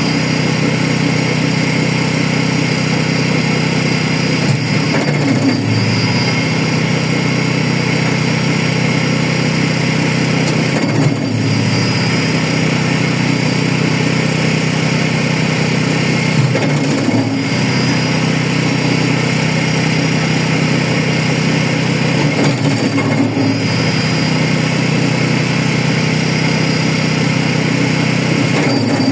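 Engine-driven wood chipper running steadily while chipping branches. Its engine note dips briefly about every six seconds.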